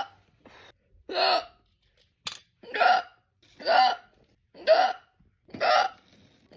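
A person's hiccups, five sharp voiced "hic" sounds at a steady pace of about one a second, with a brief click a little after two seconds in.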